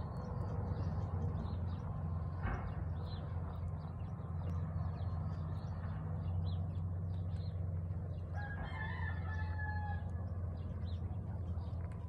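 A rooster crows once, about eight and a half seconds in, a pitched call lasting about a second and a half. Small birds chirp throughout over a steady low hum.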